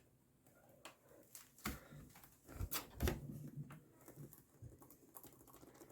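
A few faint clicks and knocks from handling a laptop while its power is connected and it is switched on.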